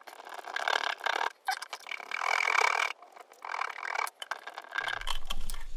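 Aerosol brake cleaner hissing in several short bursts, with scrubbing inside a brake caliper's piston bore.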